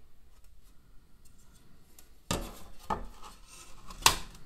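A sheet of glass being handled and laid down on a wooden worktop: two short scraping knocks a little past two seconds in and about half a second later, then a sharp click near the end.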